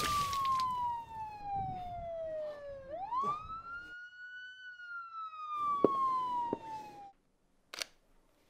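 Police siren wailing: its pitch falls slowly, swings back up quickly about three seconds in, then falls again until it cuts off abruptly about seven seconds in. A single camera shutter click follows near the end.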